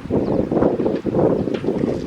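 Wind buffeting the microphone, a loud gusty low rumble that dips briefly about a second in.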